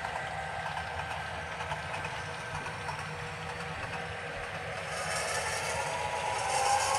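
Sound decoder in an HO scale model GP9 playing an EMD diesel engine running steadily through the model's small speaker, with the rolling noise of the model's wheels on the track. The sound grows louder about five seconds in as the string of boxcars rolls past.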